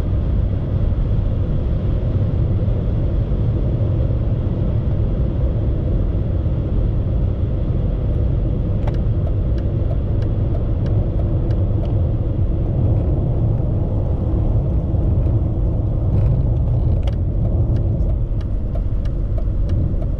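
In-cabin drone of a BMW E39 530d at high speed, its 3.0-litre straight-six turbodiesel running near 3000 rpm with tyre and wind noise, easing off from about 200 km/h after a flat-out run. A few faint ticks come through in the second half.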